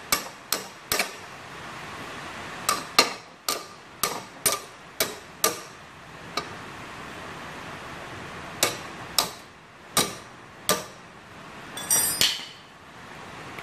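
Hammer blows on the new blade and its bolt under a Honda lawn mower deck, struck to get the bolt that extra bit tighter. The blows come as sharp metallic strikes in runs of about two a second, with short pauses, about seventeen in all. A brief metal clatter comes near the end, over a steady hiss of rain.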